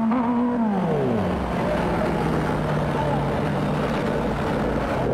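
Kawasaki Z900 inline-four engine at speed: the revs drop about a second in as the throttle closes and the bike slows, then hold at a lower steady note. Wind rush over the microphone throughout.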